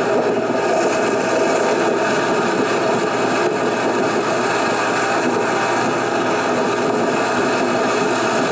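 Inboard engine of a 1955 Chris-Craft Continental runabout running steadily under way, mixed with rushing wind and water.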